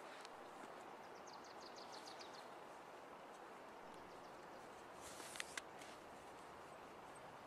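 Faint steady outdoor hiss, near silence. About a second in, a bird gives a short, rapid trill of high notes. About five and a half seconds in come two sharp clicks, the loudest sounds.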